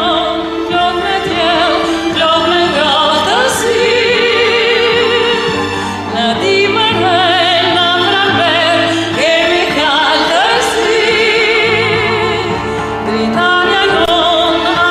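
A song playing: a singing voice holding long notes with a wide vibrato over a steady instrumental backing, with short breaks between phrases.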